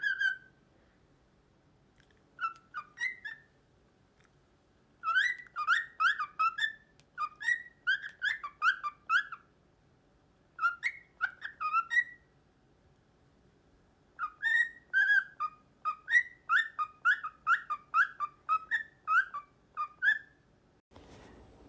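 Cockatiel whistling and chirping: runs of short, quick whistled notes, each gliding up and down, with pauses between runs. The longest runs last about four and six seconds.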